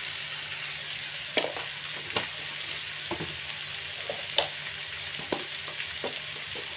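Chicken and chicken feet frying in spice paste in a wok: a steady sizzle, with a sharp pop about once a second.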